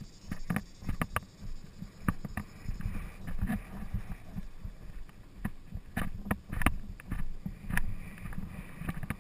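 Polo pony's hooves thudding unevenly on turf, heard from a rider-mounted camera, with the rumble of the ride and wind on the microphone. Several sharp knocks cut through the thuds.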